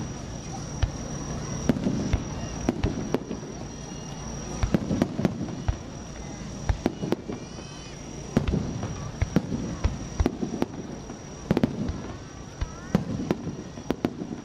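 Fireworks display: many sharp bangs and crackles from bursting shells throughout, over a low rumble, with a steady high tone in the background.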